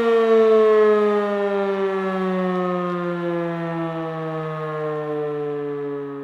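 World War II air raid siren winding down: its howl falls slowly and steadily in pitch and grows quieter.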